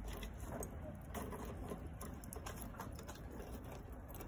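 Freshly lit lump charcoal in a barbecue grill crackling faintly with scattered small clicks, over a low steady rumble, as the coals come up to temperature.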